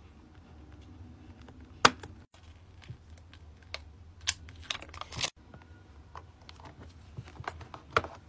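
Close-miked handling sounds of labelling a clear plastic storage box: a pen on a sticker sheet, a sticker label peeled off with tweezers with a short crinkle, and fingertips pressing and tapping on the plastic. Scattered sharp taps, the loudest about two seconds in and near the end.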